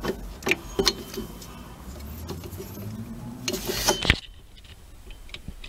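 Hand tools clicking and clinking against the metal of a car's rear drum-brake assembly, ending in a sharp metal knock about four seconds in. A low hum rises in pitch through the middle.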